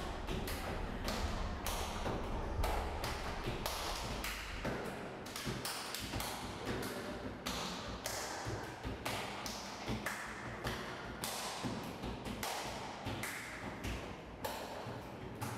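Body percussion: a quick, even rhythm of hand slaps, claps and taps on the body. A low rumble underneath drops away about five seconds in.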